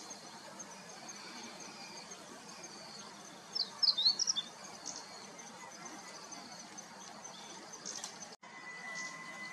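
Meadow bunting singing one short phrase of quick, high, clear notes about three and a half seconds in, over a steady outdoor hiss.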